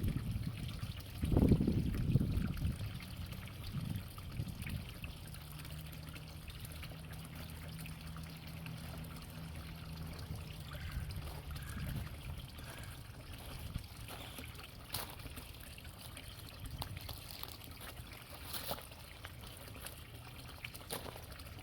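Water trickling and sloshing in a garden pond, with heavier low sloshing for the first two or three seconds and a few faint clicks later.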